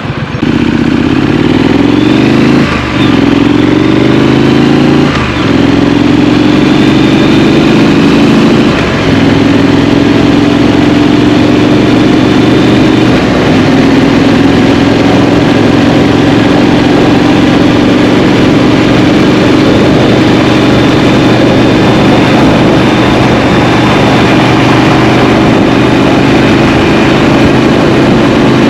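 Triumph Street Scrambler's 900 cc parallel-twin engine accelerating hard through the gears, its pitch climbing and dropping with three quick upshifts in the first nine seconds. It then settles into a steady cruise with a brief dip about thirteen seconds in.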